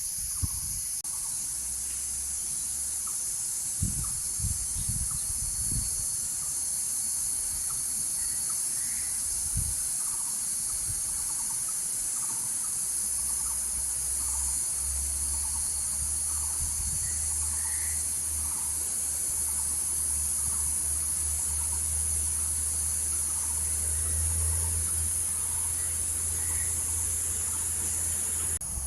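A chorus of cicadas buzzing steadily and without a break, with scattered short bird chirps. A low rumble comes in from about halfway through.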